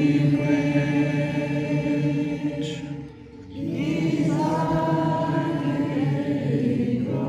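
A group of voices singing a slow, chant-like song together in long held notes, two phrases with a short pause for breath about three seconds in.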